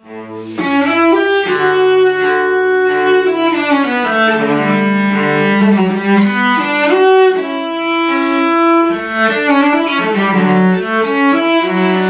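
Cello played with a bow: a slow melody of long held notes, sometimes two sounding together.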